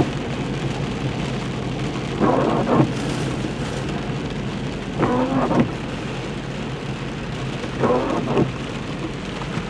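Vehicle driving on a rough forest road in rain and wet snow, heard from inside the cabin: steady engine and road rumble with rain on the vehicle, and a short squeaky sound repeating about every three seconds.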